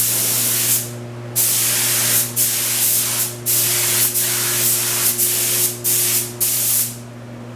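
Air spray gun spraying paint in a series of short passes, each about a second long, as the trigger is pulled and let go, with a steady hum underneath. The spraying stops near the end.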